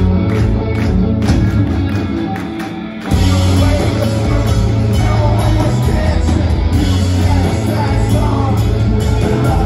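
Rock band playing live in a club, heard from the crowd: a sparser passage of steady beats for about three seconds, then the full band comes in loud with heavy bass, guitars and singing.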